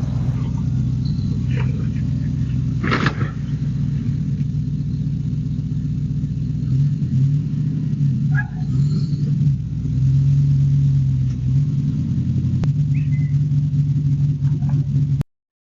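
Jeep engine running at low speed as it is driven, a steady low rumble that shifts in pitch a few times in the middle. There is a short clatter about three seconds in, and the sound cuts off abruptly near the end.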